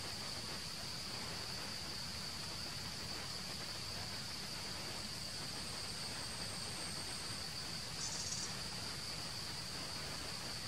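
Steady high-pitched drone of insects, unbroken throughout, with a short higher buzz about eight seconds in.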